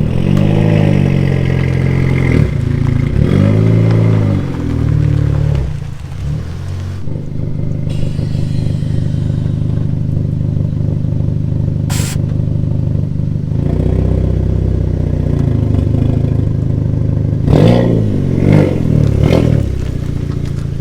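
Car engine revving in short blips, twice near the start and several quick times near the end, with a steady engine drone in between and a brief hiss about twelve seconds in.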